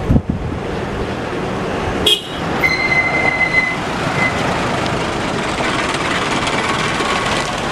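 A distant Airbus A320 airliner's jet engines run at takeoff power as it starts its roll, a steady rumble, with wind buffeting the microphone at the start. About three seconds in, a thin high whistle-like tone sounds for about a second.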